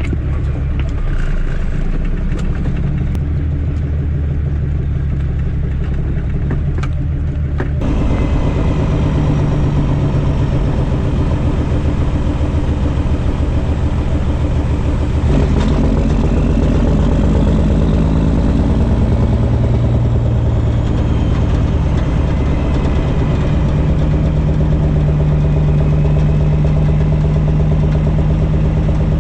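Caterpillar C13 inline-six diesel in a Kenworth W900B dump truck running steadily at low revs. About eight seconds in it gets louder and fuller and stays that way, with the pitch shifting up and down a little in the middle.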